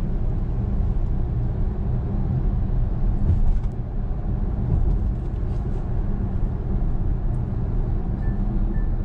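Steady low road and tyre rumble heard inside the cabin of a moving Kia Carnival minivan, with a few faint clicks and three short faint beeps near the end.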